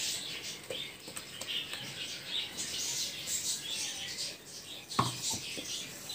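Tamarind gravy cooking in a metal pan on a gas stove, giving a faint, uneven crackle and bubbling, with a few light knocks of a ladle against the pan, about a second in and again near five seconds.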